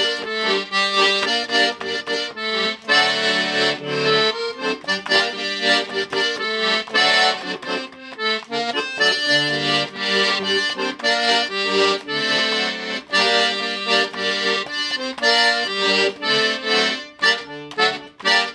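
Accordion playing a lively instrumental passage of a hymn tune alone, fast runs of notes over steady bass chords, cutting off abruptly at the end.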